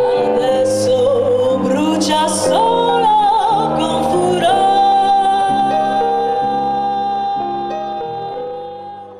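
Female jazz vocalist singing with piano and electric bass: a quick wavering run of notes, then one long held high note over the piano chords and walking bass, fading out near the end.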